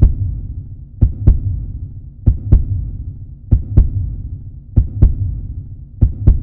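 Heartbeat sound effect: deep lub-dub pairs of thumps, one pair about every second and a quarter, over a low steady rumble.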